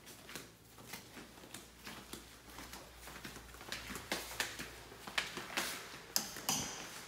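Footsteps walking through a room, heard as irregular soft taps with faint rustling, growing louder and sharper over the last three seconds.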